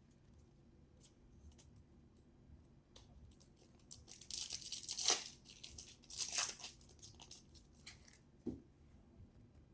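A baseball card pack wrapper being torn open and crinkled, in two louder rips about halfway through, amid faint clicks of cards being handled.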